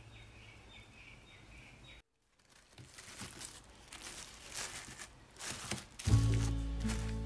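Plastic cling wrap crinkling and rustling as hands stretch it and tuck it down over a metal baking tray. Background music fades out at the start and comes back in, louder, near the end.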